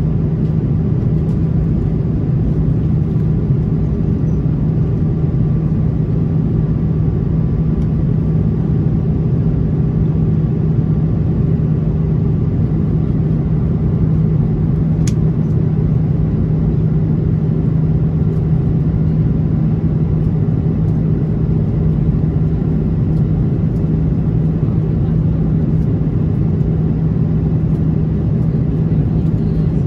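Airbus A330-300 cabin noise from a seat over the wing: the Rolls-Royce Trent 700 turbofans and rushing air making a steady low drone with a constant hum, heard from inside the cabin.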